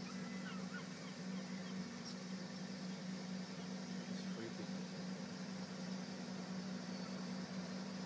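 A motor running steadily, a constant low drone, with a few faint bird chirps in the first couple of seconds.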